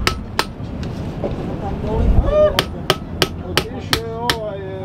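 Hammer blows on metal, fitting an inner CV joint onto a car's drive half-shaft: two strikes, a pause, then a quick run of blows about four a second.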